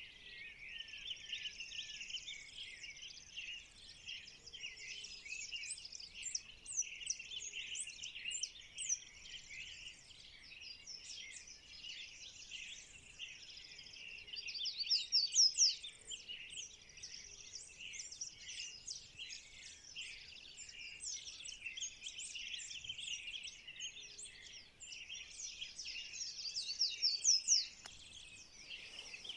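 Dawn chorus of many birds chirping and calling together at once, with louder spells of rapid, sweeping calls about halfway through and again near the end.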